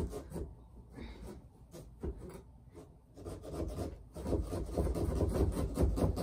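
Hand-held carving tools sawing through pumpkin shells in quick, repeated back-and-forth strokes, a rasping rub. The strokes grow louder about four seconds in, with low thudding under them.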